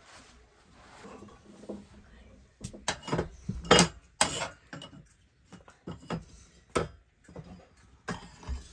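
Metal fire tongs and an aluminium cooking pot knocking and clinking on a wood-fired stove. A run of irregular sharp clanks and scrapes starts after a couple of seconds, loudest just before four seconds in.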